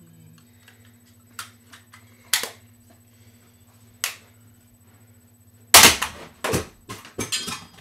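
Thrown objects hitting a running electric fan: three sharp knocks spread over the first four seconds, then near the end a loud rapid clatter of smacks lasting about two seconds, over a low steady hum.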